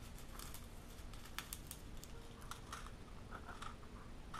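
Faint handling of small plastic packaging and parts: a scattering of light clicks and taps as items are taken from a small plastic box.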